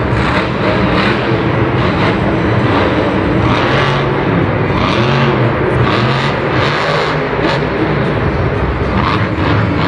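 Monster truck's supercharged V8 engine revving up and down, heard from the stands of an indoor stadium over a steady crowd din, as the truck flips and drives on after landing on its wheels.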